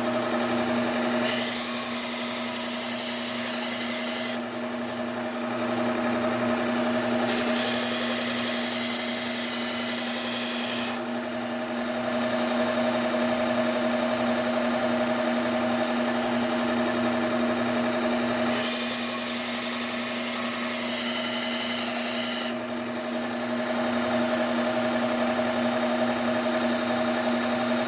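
Bucktool low-speed belt sander running with a steady hum, with a Cubitron 120 grit belt grinding a hunting knife's edge in three passes of a few seconds each, each pass a bright hiss over the hum.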